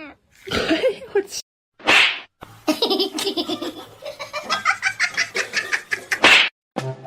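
A person laughing hard in a long run of quick, repeated bursts, with short sharp noisy bursts about two seconds in and near the end.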